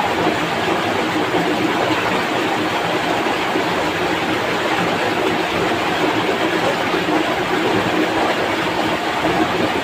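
Fast-flowing shallow stream rushing over rocks and through a riffle, a steady unbroken rushing.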